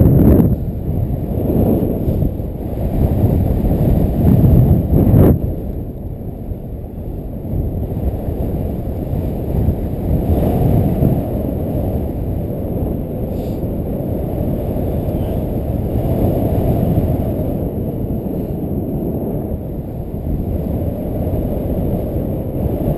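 Airflow buffeting a paraglider pilot's camera microphone in flight: a dense, low rumbling rush that swells in gusts. It is loudest through the first five seconds, then drops suddenly and runs on more evenly.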